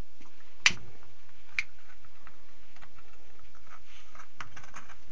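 Sharp clicks in a small room: one loud click about two-thirds of a second in, another about a second later, then scattered fainter clicks and ticks.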